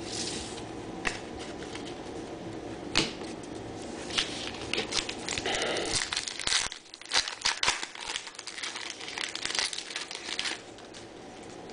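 Trading-card pack wrapper crinkling and tearing as a pack is opened and cards are handled, with a dense run of crackles from about four seconds in until near the end.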